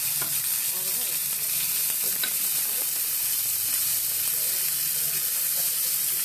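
Shredded cabbage and tomato sizzling steadily in hot oil in a nonstick frying pan as they are stirred, with a few light clicks of the utensil against the pan.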